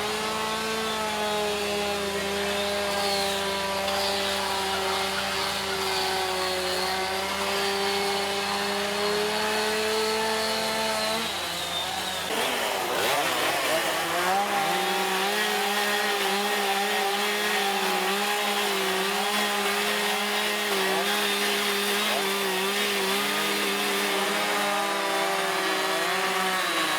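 Two-stroke chainsaws running at high revs while carving wood. About twelve seconds in the revs waver and dip briefly, then settle back to a steady high pitch.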